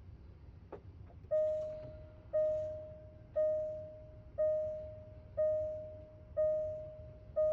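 Car warning chime sounding repeatedly, about once a second, seven bell-like tones that each ring and fade, in a 2022 Jaguar E-Pace while its RFA module is being programmed during a learn-VIN routine. A faint click comes just before the chimes start.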